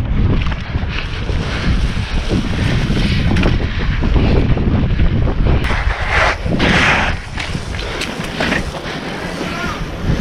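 Wind buffeting a microphone carried on a moving BMX bike, a loud steady rumble with irregular gusts and rattles.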